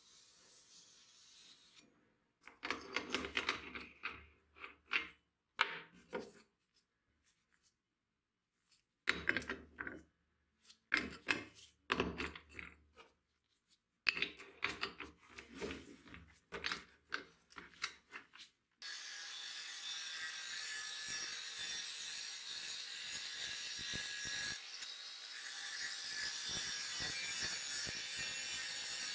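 Short bursts of scraping and clattering as tools are handled, including a disc being fitted onto an angle grinder. About two-thirds of the way in, an angle grinder starts grinding the spring-steel sword blade and runs steadily with a high whine.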